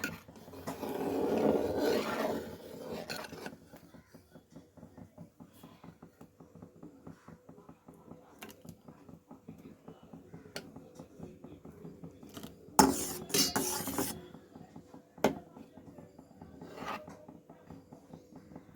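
Kitchen utensils and dishes clinking and scraping: a long rubbing scrape about a second in, a run of small light clicks and taps, and a second loud scrape about two-thirds of the way through.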